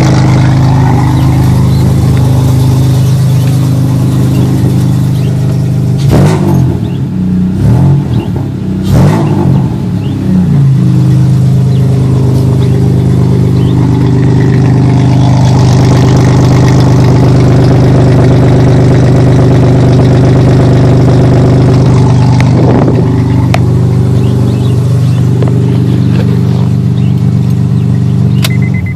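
Honda Accord 3.0-litre V6 idling through a 3-inch single-exit Magnaflow cat-back exhaust, shortly after a cold start. It is revved several times about six seconds in and once briefly later on, then shut off near the end.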